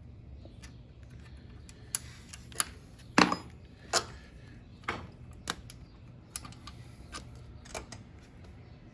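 Irregular sharp clicks and knocks of hands and tools working on a motorcycle's clutch cable as it is taken off, about ten in all, the loudest about three seconds in, over a faint low hum.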